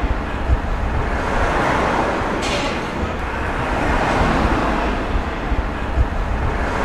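Street traffic ambience: vehicles going by, the noise swelling and fading every few seconds over a low rumble.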